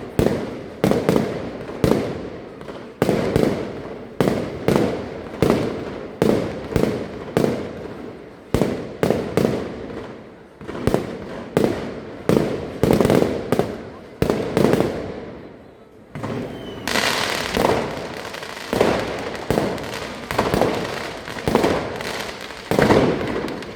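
Fireworks display: aerial shell bursts banging in quick succession, about two a second, each fading out with a short echo. Past the middle a dense crackling joins the bangs.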